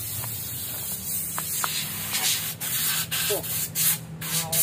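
Compressed air hissing from an air hose nozzle blowing brake dust out of a minibus's drum-brake hub. The hiss is steady at first, then comes in short bursts from about two seconds in.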